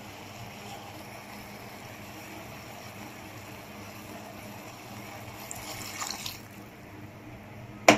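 Water poured into a pot of browned meat, okra and tomato sauce, splashing for about a second, some five and a half seconds in, over a steady low hiss.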